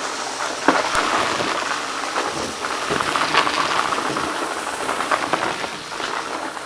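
Dry crunchy mess-test granules crackling and rattling, a dense run of fine ticks and crunches that swells about a second in and carries on.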